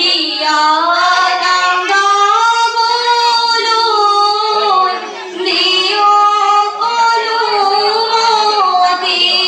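A group of teenage schoolgirls singing biya naam, Assamese wedding songs, as a sung melody with long bending phrases and a short break between phrases about five seconds in.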